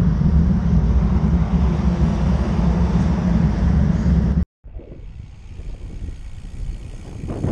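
Wind rushing over an action camera's microphone on a moving road bicycle: a steady low rumble. It cuts off about four and a half seconds in, then comes back quieter and builds again near the end.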